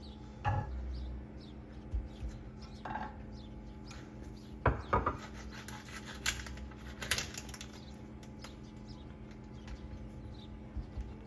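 Household handling sounds: objects knocked and set down one after another, a handful of sharp clatters with rubbing between them, the busiest stretch in the middle.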